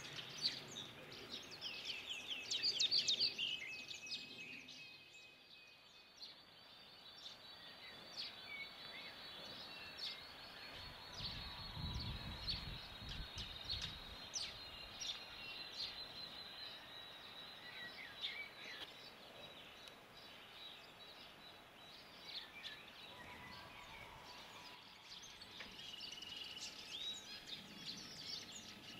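Birds chirping and calling, many short calls overlapping, loudest about three seconds in, with a thin steady high note running through the middle. A brief low rumble comes about halfway.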